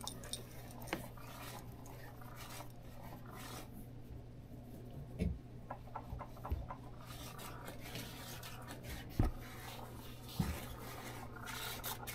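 Quiet rubbing of a hand stroking and handling a cat's fur, with a few soft thumps about five, nine and ten seconds in. A steady low hum runs underneath.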